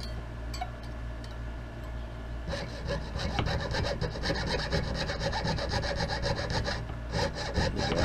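Jeweler's saw with a fine zero-gauge blade cutting through cast silver held against a wooden bench pin. A few light strokes at first, then steady rapid sawing from about two and a half seconds in.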